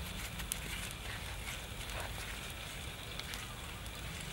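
Charcoal fire crackling with a few sharp pops under a whole pig roasting over the coals.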